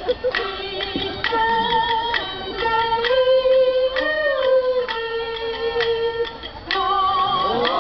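Minshingaku (Ming-Qing style Chinese) ensemble music: moon lutes plucked in a steady rhythm under a held, slightly wavering high melody line. The music dips briefly near the end, then comes back in.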